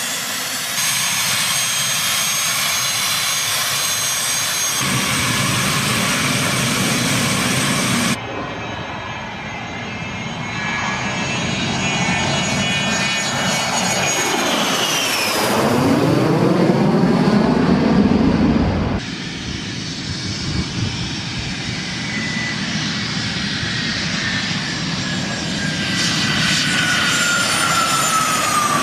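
Twin turbojet engines of a Learjet 25 (General Electric CJ610) heard across several spliced clips, cutting abruptly from one to the next. There is a high-pitched whine on the ground, then a low pass overhead whose whine drops sharply in pitch as the jet goes by, about halfway through and loudest just after. Near the end a whine slowly falls as the jet rolls along the runway.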